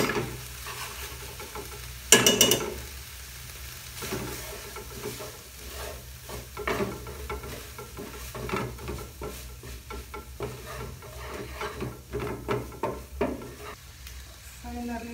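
A metal spoon knocks sharply twice on the pan, about two seconds apart, as tomato paste is spooned in. Then a wooden spoon stirs and scrapes through chopped bell peppers frying in a pan, in quick irregular strokes, over a steady sizzle.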